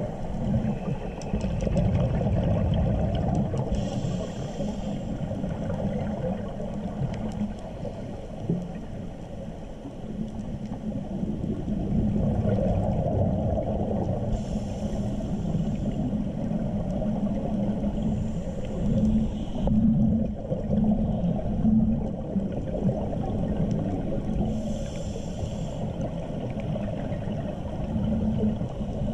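Scuba diver's regulator breathing heard underwater through a camera housing: a low, muffled bubbling rumble of exhaled air, broken by four short hisses of inhaled breaths.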